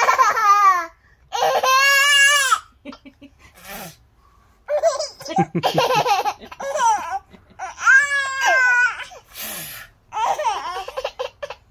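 Baby laughing in about five high-pitched, wavering peals with short pauses between them.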